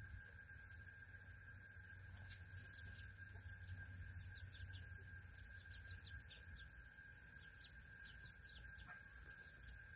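Serama chickens clucking softly, with a run of faint, short, high chirps in the middle. A steady faint high whine sits underneath.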